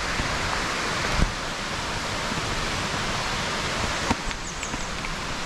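Mountain stream rushing steadily, with a short knock about a second in and another about four seconds in.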